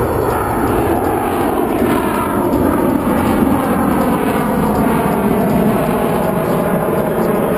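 F-16 fighter jet's engine in display flight: a loud, steady jet roar.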